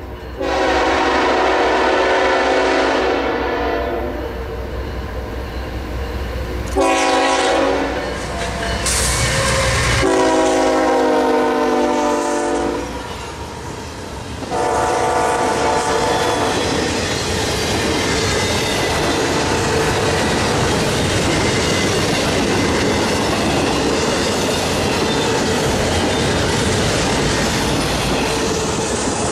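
Diesel freight locomotive's air horn sounding four blasts, the second one short, followed by the steady rumble and wheel clatter of a double-stack intermodal freight train rolling past.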